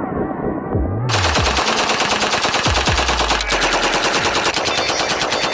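Uzi submachine gun firing on full automatic: a rapid, continuous string of shots that starts about a second in and keeps going.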